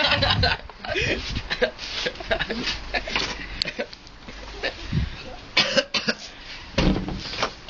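A young man coughing and spluttering hard, again and again, in short loud fits, after trying to swallow a spoonful of dry ground cinnamon: the powder is catching in his throat.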